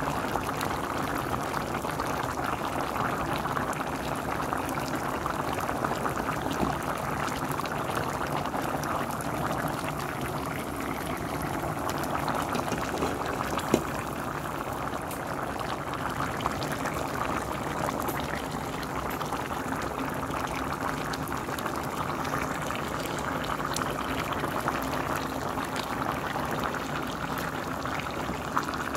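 Pot of green beans, potatoes and ham hock in broth at a rolling boil: steady bubbling, with one light click about halfway through.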